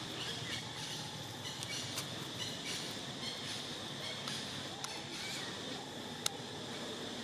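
Outdoor background noise: a steady high hum with scattered faint clicks and short chirps, and one sharp click about six seconds in.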